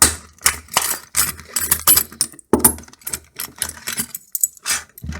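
Stiff plastic blister packaging being pulled and prised apart to free a lock cylinder and its keys: a rapid, irregular run of loud crackles and sharp clicks, with a short pause about halfway through.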